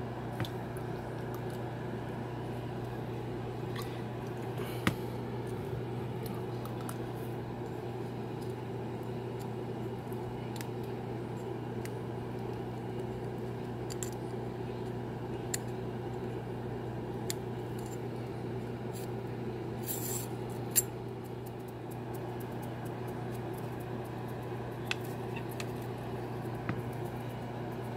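Steady low motor hum, with a few light clicks and taps; about twenty seconds in, a brief hiss is followed by a sharp click.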